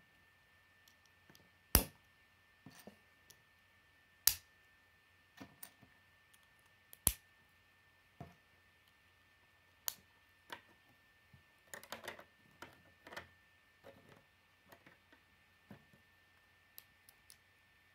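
Plastic Lego bricks clicking and clacking as they are handled and pressed together: a few sharp clicks spaced a couple of seconds apart in the first seven seconds, then lighter scattered clicks.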